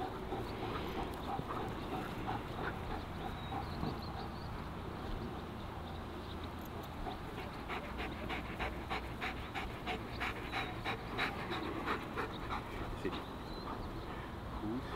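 Two German Shepherds panting in quick, short breaths as they heel. The panting grows denser and louder about halfway through.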